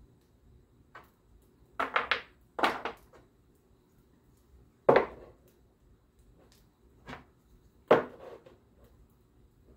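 Small wooden tool-holder blocks being handled and set down on a wooden cabinet panel: a series of sharp knocks and short clatters, the loudest about two, three, five and eight seconds in.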